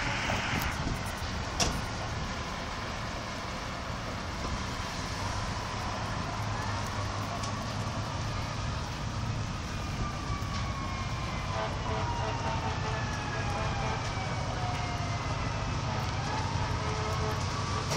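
A distant emergency-vehicle siren wailing faintly, its pitch gliding down and up, comes in about halfway through over a steady low rumble. One sharp crack sounds near the start.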